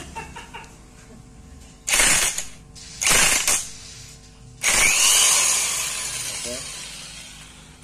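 DCA APB20C electric impact wrench hammering on an engine-block bolt to undo it, in three short runs about a second apart. The third run is the longest and its sound dies away slowly.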